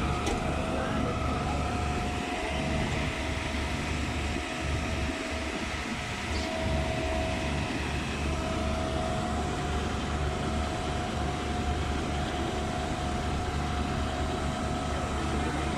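Heavy diesel machinery of a concrete pump truck and transit mixer running steadily: a constant low engine drone with a steady whine above it.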